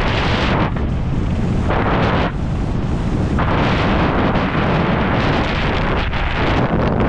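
Heavy wind buffeting a microphone: a dense, steady rumble that twice eases in its upper range for about a second.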